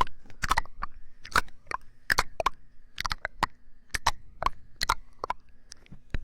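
Close-miked mouth sounds: irregular sharp, wet clicks and pops, a few a second.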